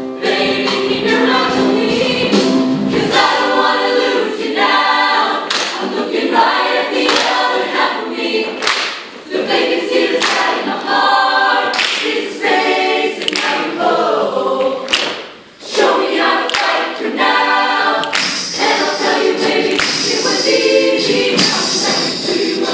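Mixed show choir singing a fast number together in harmony, with sharp percussive hits cutting through the voices. The singing drops away briefly twice, about a third of the way in and again past the middle.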